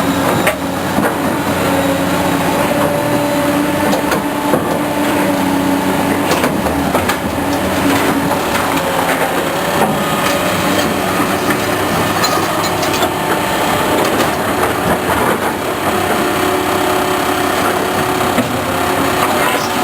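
Excavator working while loading a dump truck: heavy diesel engines running steadily, their pitch shifting now and then, with scattered knocks and clatter from the machinery and load.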